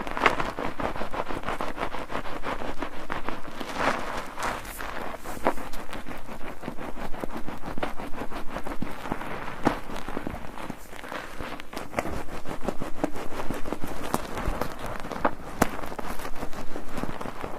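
Bar soap being lathered with water in a foaming net: wet squelching and dense crackling of bubbles, pulsing with quick repeated squeezes.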